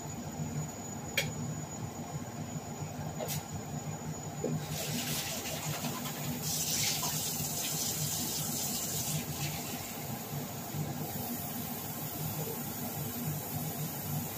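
Water running, as from a kitchen tap filling a container to add to the pot. It starts about four and a half seconds in, is strongest in the middle and dies away a few seconds before the end, over a low steady hum, with a couple of light knocks before it.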